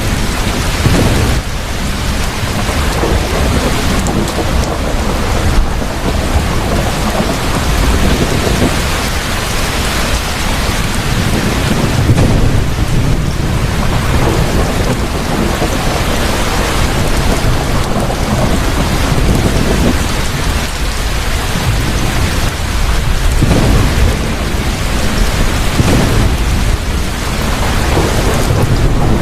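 Thunderstorm: heavy rain pouring down with thunder rumbling again and again every few seconds.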